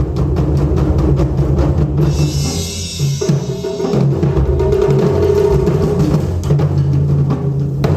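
Ensemble of Japanese taiko drums played in fast, dense strikes. About two seconds in, a short burst of bright, hissing high sound joins for about a second.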